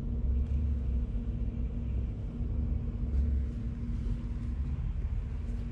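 Steady low rumble with a continuous hum underneath and a faint hiss, unchanging throughout.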